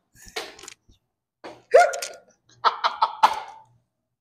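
A man's laughter dying down in a few short, breathy bursts with pauses between them.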